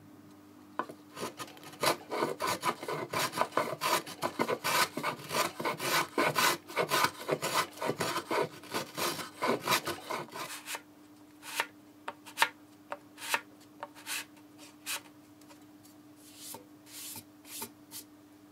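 Hand-sanding a mahogany guitar body with a sanding block at the neck joint. Quick back-and-forth scraping strokes run for about ten seconds, then thin out to scattered single strokes.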